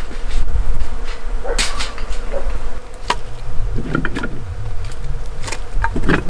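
A flying insect buzzing, with a few sharp clicks and knocks scattered through it.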